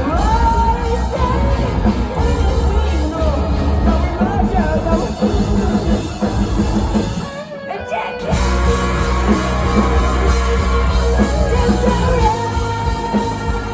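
Rock band playing loud live, with electric guitars, bass and drum kit, and a singer's voice over them. About seven and a half seconds in, the low end drops out for under a second before the full band comes back in.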